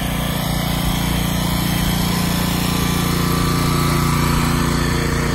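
An engine running steadily at a constant speed: an even hum that holds its pitch.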